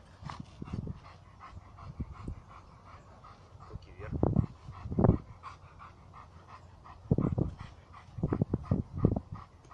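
German shepherd giving short barks: a pair about four and five seconds in, then a quick run of them near the end.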